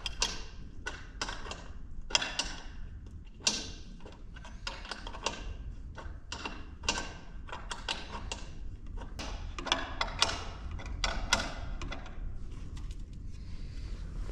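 Hand work on a homemade plastic toolbox and metal fittings: irregular knocks, clicks and scraping, about a dozen sharp strokes at uneven intervals, over a low rumble.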